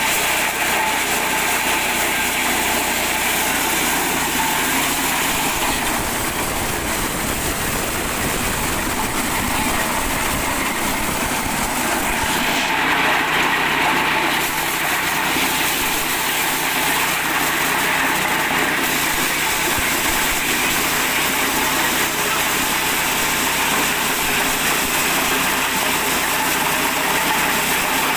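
Small 8 hp petrol engine running steadily, driving a mini corn sheller.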